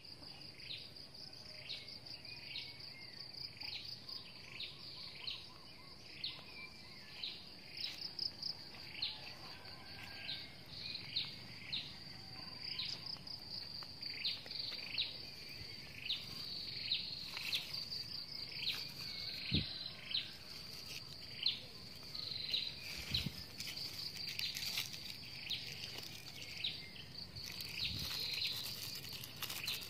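A steady high-pitched insect trill with a bird's short falling chirps repeated over and over, about one to two a second. A few soft knocks come in the second half.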